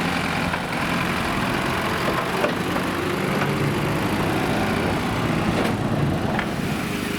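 Banger racing cars' engines running together, a steady rumble with a few faint knocks.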